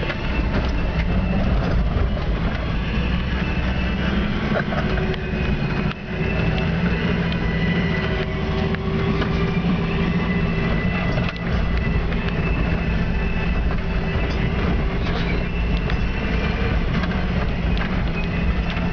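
Toyota Land Cruiser FJ60's 4.2-litre straight-six engine running steadily under load, heard from inside the cab, with scattered knocks and rattles as the truck bounces along a rutted dirt track. The engine note dips briefly about six seconds in and again around eleven seconds.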